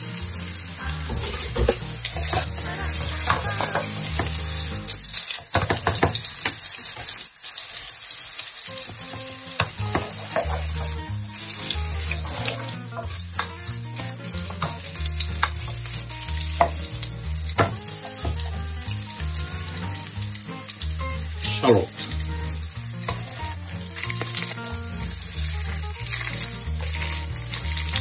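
Chopped garlic sizzling in hot oil in a stainless steel pot, with scrapes and clinks of a spoon stirring it through the oil.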